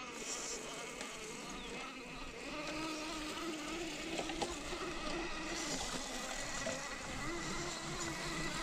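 Axial SCX10 II scale RC crawler's electric motor and gear drivetrain whining as it crawls up a steep dirt trail. A buzzing tone that wavers in pitch grows stronger about two and a half seconds in, over a thin steady high whine.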